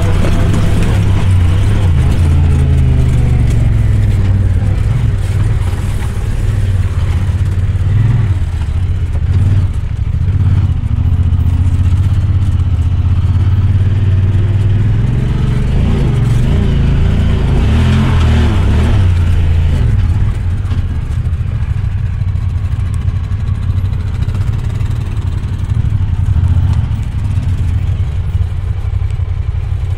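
Off-road vehicle engine running under way on a trail, its pitch rising and falling with the throttle. It pulls hardest a little past the middle, then settles to a lower, steadier drone.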